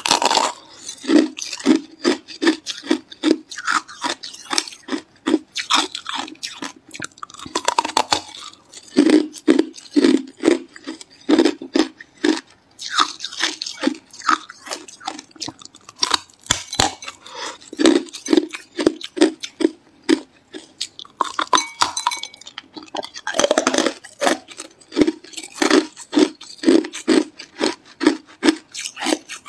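A person biting and chewing hard ice close to the microphone: sharp crunches and cracks in quick runs of several a second, with short pauses between bites.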